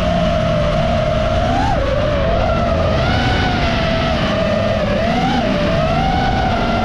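FPV quadcopter's motors and propellers whining, the pitch wavering with the throttle and jumping up briefly twice, over a low rumble of wind and engine noise.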